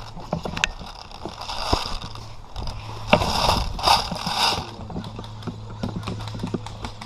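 Airsoft gunfire in an airsoft skirmish: sharp clicks and pops at irregular intervals, some in quick runs, over a steady low hum.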